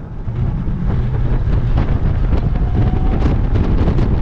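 Heavy wind buffeting on the microphone of a camera riding on a fast-moving electric scooter fitted with a 7,000-watt motor: a loud, rough, steady rumble with crackle. A faint rising whine comes in about two and a half seconds in.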